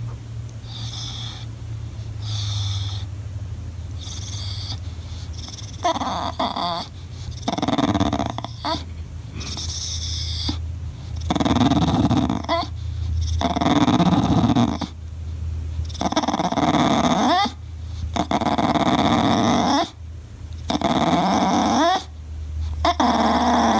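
English bulldog whining and grumbling in a long run of drawn-out cries, each a second or two, quieter for the first few seconds and louder after: sounds like an Ewok. He is throwing a fit because nobody is playing with him.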